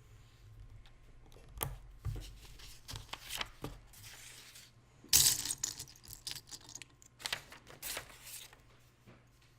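Small plastic Lego pieces being handled: scattered sharp clicks and rattles, with a louder rustle about five seconds in.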